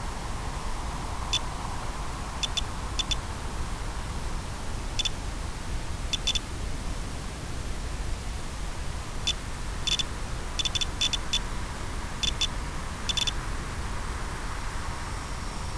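Steady hiss with a faint high hum, broken by short high electronic beeps that come singly or in quick pairs and threes, about a dozen of them through the stretch.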